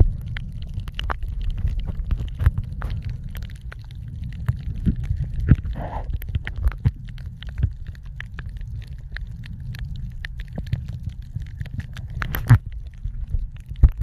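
Muffled underwater sound recorded by a submerged camera: a steady low rumble of moving water with scattered sharp clicks and crackles, and one louder click near the end.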